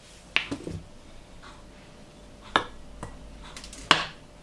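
Metal spoon clinking against a glass mixing bowl: three sharp clicks a few seconds apart, the last the loudest.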